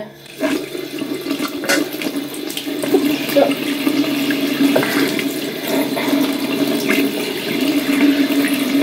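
Tap water running steadily into a bathroom sink, with a steady low hum under it; it starts just after the beginning, with a few light knocks over it.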